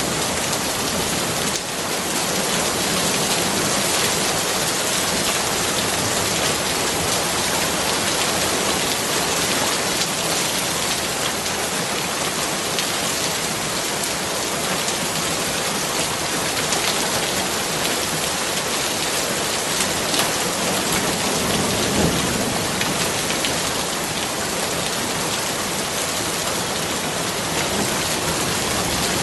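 Steady heavy rain, a dense even patter of drops on surfaces. A brief low rumble comes about two-thirds of the way through.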